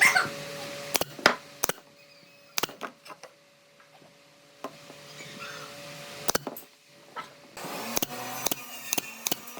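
Irregular sharp knocks and taps of tools on wood, some in quick clusters of two or three.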